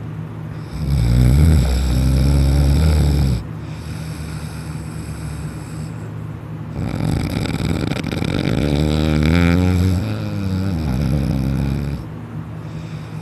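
A sleeping person snoring loudly: two long snores, the first about three seconds and the second about five, over a steady background hum.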